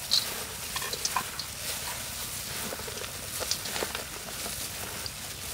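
Plastic-gloved hand tossing a salad of shredded vegetables and pork in a metal bowl: irregular rustling and crackling with scattered soft clicks.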